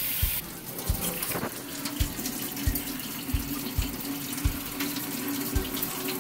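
Kitchen faucet running into a stainless steel sink, the stream splashing as it is cupped by hand to the mouth. A steady low hum sets in about a second and a half in, under soft low thumps repeating about every two-thirds of a second.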